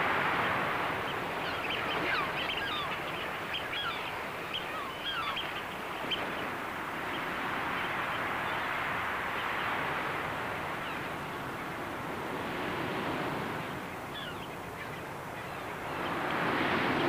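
Steady rush of sea surf with short bird chirps scattered through the first half and once more later. The surf swells louder near the end.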